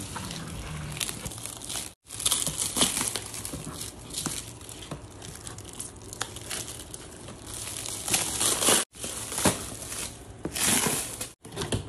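Clear plastic stretch wrap crinkling and tearing as it is snipped with scissors and peeled off a cardboard box, in irregular crackly bursts broken by a few brief silent gaps.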